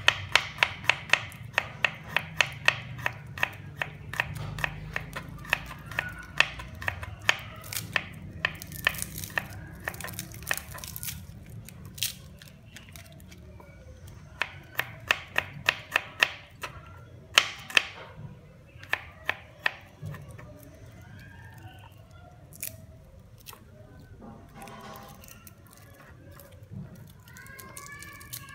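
A knife chopping food on a cutting board in quick, regular strokes, about three to four a second, in runs of several seconds with pauses between.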